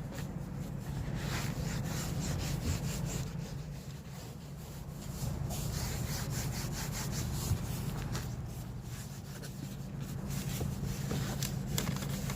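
Applicator pad rubbing protective dressing onto a vehicle's plastic door trim in repeated back-and-forth strokes, easing off briefly twice.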